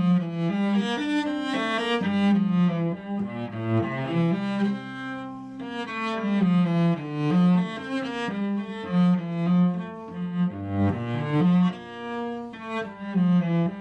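Solo cello played with the bow: a fast-moving passage of many short notes, dropping twice to lower, longer notes.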